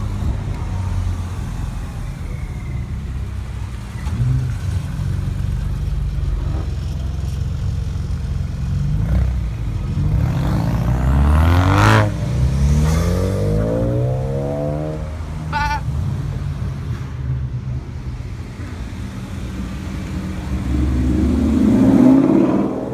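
Several performance car engines running. About halfway through, one revs up hard with its pitch climbing, and near the end another car swells loud as it drives close.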